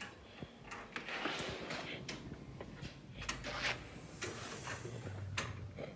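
A door being opened and closed, with a series of knocks and clicks and the rustle of the phone being handled.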